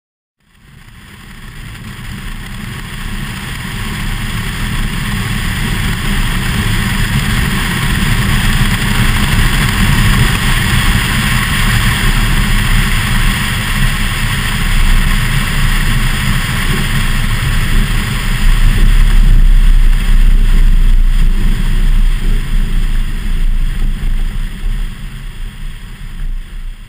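Wind and airflow rushing over a camera mounted on a Cessna 172RG's tail during the landing and rollout, with a strong low rumble beneath. It fades in over the first few seconds, grows loudest past the middle and fades out near the end.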